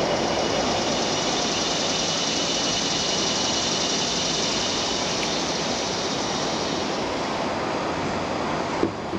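Steady rushing background noise, even across low and high pitches, with one sharp click near the end.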